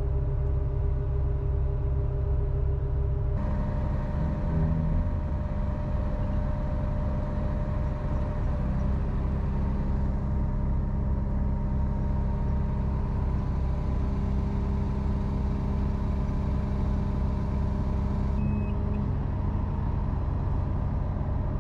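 Liebherr LTM 1250-6.1 all-terrain crane's diesel engine and hydraulics running steadily with a low hum while the counterweight is jacked up; the sound grows fuller about three seconds in.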